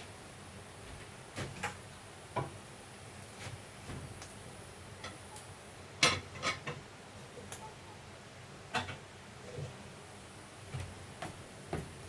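Scattered light knocks and clicks at irregular intervals, the loudest about six seconds in.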